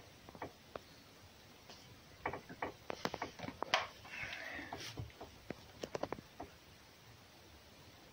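Scattered light taps, clicks and rustling from animals moving about on straw beside a wooden box, with a brief scratchy rustle about four seconds in.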